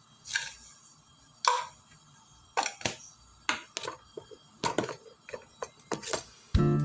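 About a dozen light, irregular taps and clicks as seasoning powder is shaken and tapped out of a small can onto raw pork slices in a plastic tub. Guitar music comes in near the end.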